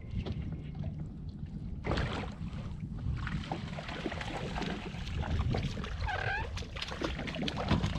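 A hooked speckled trout splashing at the surface as it is played in on the line, with water spattering from about two seconds in, over a low steady rumble.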